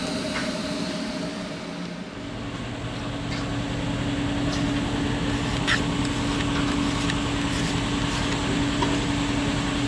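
TIG welding arc buzzing steadily, striking about two seconds in, over the constant hum of the welding machine and shop fans.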